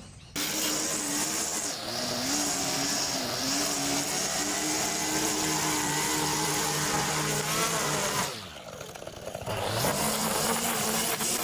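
Line trimmer running at full throttle, its spinning line cutting long grass along a footpath edge, with a wavering motor pitch; the revs drop off about eight seconds in and pick back up a couple of seconds later.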